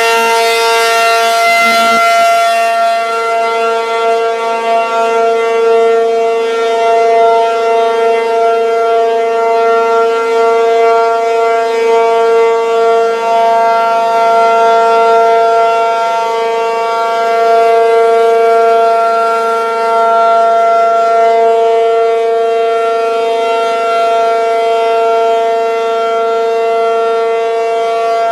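P-50 outdoor warning siren stuck on, sounding one steady, unbroken tone at full speed that swells gently in loudness. It is a malfunction, assumed to be a welded relay in its controls, that keeps the motor running until the siren is cut off at the disconnect.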